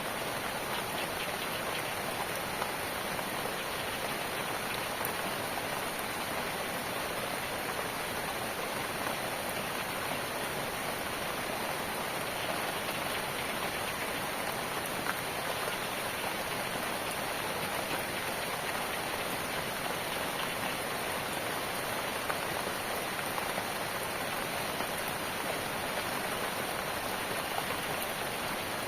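Steady rain falling on surfaces, an even hiss with scattered drop patter.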